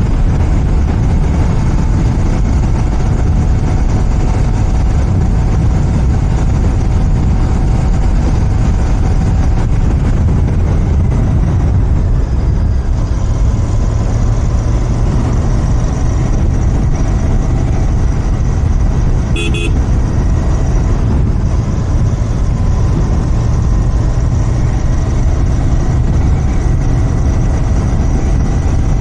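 Royal Enfield Continental GT 650's 648 cc parallel-twin engine running steadily on its stock exhaust while riding. About two-thirds of the way through, a single short horn beep.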